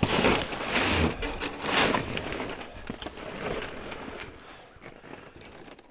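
Crunching and scraping in deep, cold snow as someone digs around a buried pile of scrap metal: a few rough strokes about a second apart that grow fainter.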